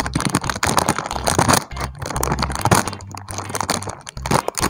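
Small plastic Lay's chip packet crinkling and rustling as a child pulls and twists at it, struggling to tear it open.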